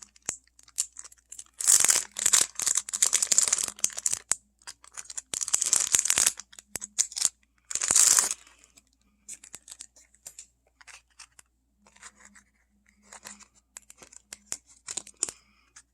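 A blind-bag toy package being torn open, with three loud rips about two, five and eight seconds in. After them come fainter crinkling and small clicks from handling the packaging.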